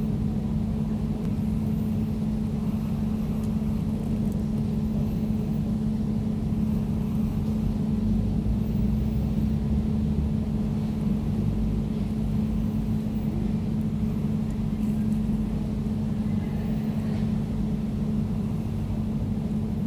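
Air conditioner running steadily: a constant hum with a steady low tone over a rumble.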